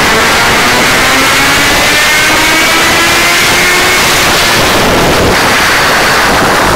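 1992 Suzuki GSX-R inline-four engine running hard on a motorcycle dynamometer, its revs climbing steadily through a dyno pull.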